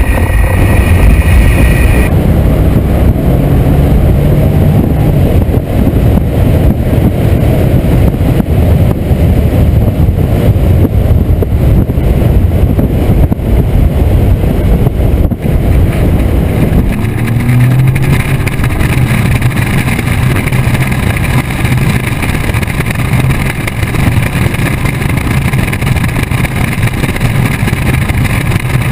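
2013 Mercedes SL 500's twin-turbocharged V8 engine and exhaust running loudly as the car drives along. The sound changes character about two seconds in and again about seventeen seconds in.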